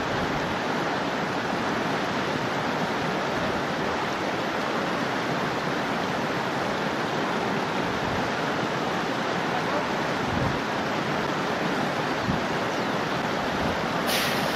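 River water rushing over rocks in a small rapid, a steady, even rush. Near the end a brighter hiss joins it.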